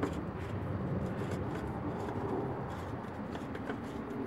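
Oil filter cartridge housing being screwed onto the engine by hand: a few faint clicks and light scraping over a steady low background hum.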